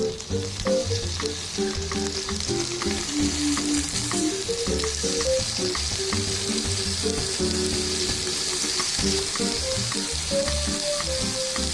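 Pieces of Spanish mackerel (sawara) sizzling steadily in hot oil in a non-stick frying pan as they are browned and turned over, with light background music.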